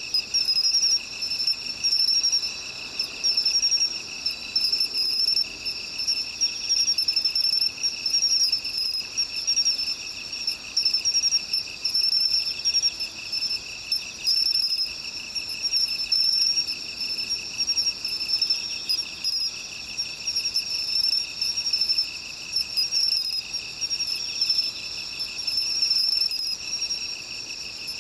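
Insects such as crickets trilling in a steady chorus, several high-pitched trills layered at different pitches.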